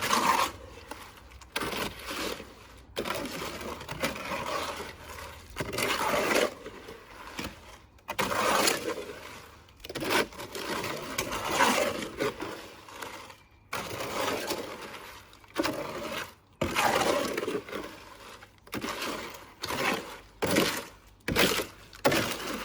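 Wet cement mix being stirred and scraped in a container, in repeated gritty strokes about every second or two.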